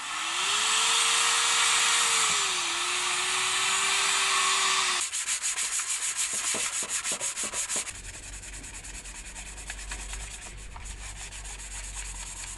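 Paint being sanded off moped parts. For about five seconds a hand-held power tool grinds steadily, its motor tone sagging once under load. Then comes hand sanding with sandpaper on a fuel tank, quick back-and-forth rasping strokes for about three seconds, and after that quieter rubbing over a low hum.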